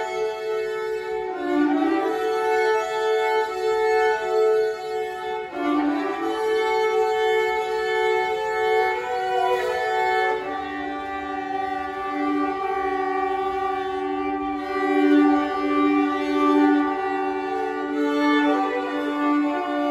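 A trio of violins playing a slow melody in harmony, bowing long held notes. About ten seconds in, a lower part comes in under the tune on a long sustained note.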